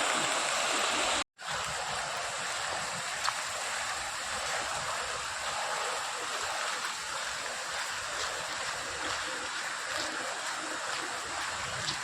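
Floodwater flowing and rushing steadily across a submerged road. The sound drops out for a moment about a second in, then carries on.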